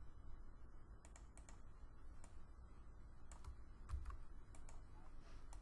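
Faint, scattered keystrokes on a computer keyboard: short clicks in small irregular clusters over a low hum.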